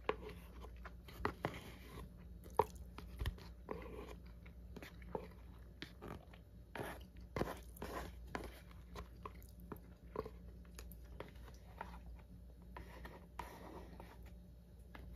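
Wooden chopsticks clicking and scraping irregularly against a plastic takeout bowl while the last grains of rice are picked out, with eating sounds mixed in.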